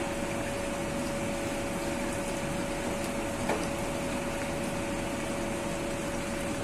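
Steady mechanical hum with a constant mid-pitched whine, with one light tick about halfway through.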